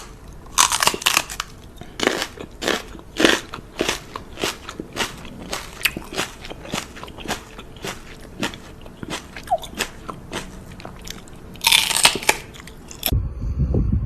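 Something crunchy being chewed: a run of crisp crunches about two a second, with louder bouts of crunching near the start and near the end.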